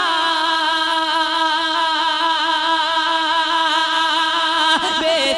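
Naat singing: a voice holds one long note with a slight waver, then breaks into new notes near the end.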